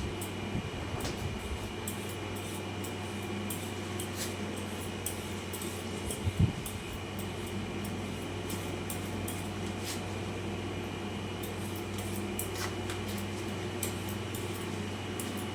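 Steady mechanical hum, like a running fan or appliance motor, with scattered light clicks and one louder thump about six seconds in.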